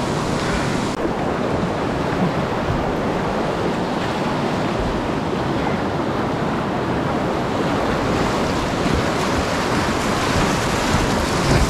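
River whitewater rushing and churning over rocks, a loud steady roar heard close up from a kayak running the rapid.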